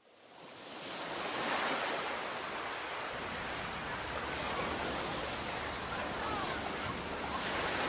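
Surf washing in waves, fading up from silence over the first second into a steady rush that swells about every three seconds.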